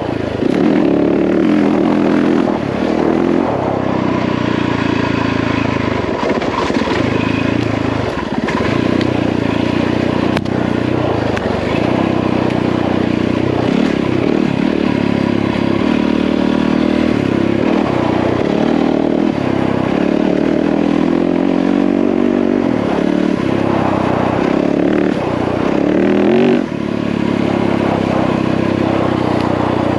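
Yamaha WR450F four-stroke single-cylinder dirt bike engine running under way on a trail, its note rising and falling as the throttle is worked, with a quick climb in revs and a brief drop near the end.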